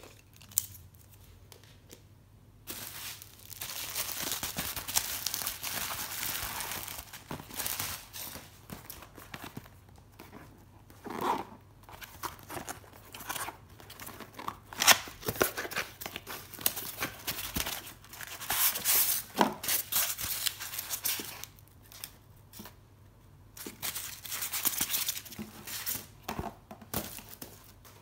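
Packaging being torn and crinkled open by hand, in irregular rustling bursts with sharp rips, starting a few seconds in after a couple of light clicks.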